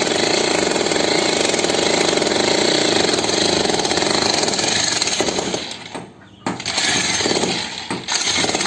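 Electric demolition hammer (jackhammer) breaking up a concrete slab: rapid hammering runs steadily for about five and a half seconds, stops briefly about six seconds in, then goes on in short bursts.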